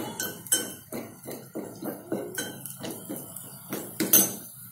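Metal spoon stirring fried tempering in a small stainless steel pot, clinking and scraping against the pot's sides in repeated irregular knocks, a few a second, loudest about four seconds in.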